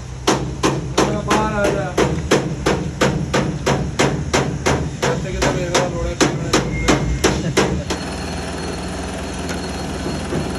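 Hammer blows on metal in a fast, steady rhythm of about three a second, with a ring after many strikes, over the steady hum of a running machine. The hammering stops about three-quarters of the way through while the machine keeps running.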